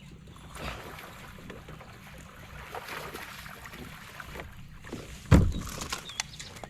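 Water and wind noise around a kayak, with light knocks and one loud, short, low thump about five seconds in.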